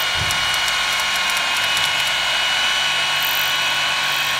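Corded electric knife running steadily with a high-pitched motor whine and hiss as it cuts through mattress foam.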